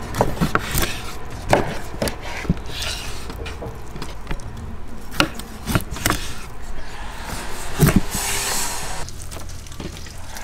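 Knife cutting lamb ribs apart on a wooden cutting board: irregular knocks and taps of the blade against the board as it slices between the ribs.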